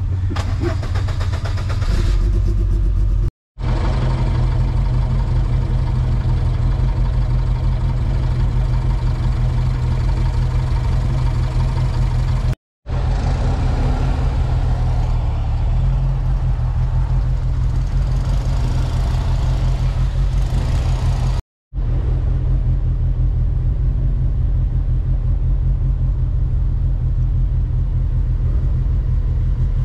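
Open-topped Lotus Elise's engine running as it pulls away and drives slowly, heard from inside the car, with heavy low rumble. The sound is broken by three brief silences.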